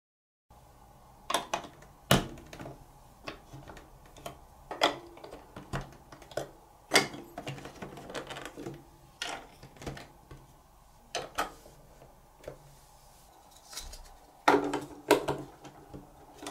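Chunky plastic toy building blocks and marble-run track pieces being pressed and snapped together by hand: irregular plastic clicks and knocks, with a cluster of louder knocks near the end.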